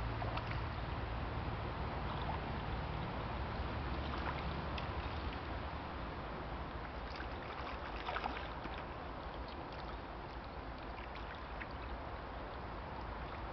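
Wind rumbling on the microphone over water splashing at the bank as a hooked asp is played close in on a fly rod, with a few light splashes, the sharpest about eight seconds in. The rumble is heaviest at first and eases off.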